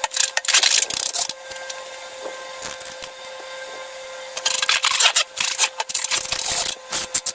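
Hands squishing and handling slime and balloon plastic: irregular spells of crackly rustling with sharp sticky clicks, loudest at the start and again through the second half, over a steady faint hum.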